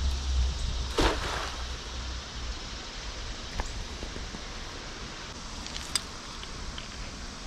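Steady outdoor hiss with a low rumble of wind on the microphone that fades out, a sudden loud brief noise about a second in, and a few faint clicks later.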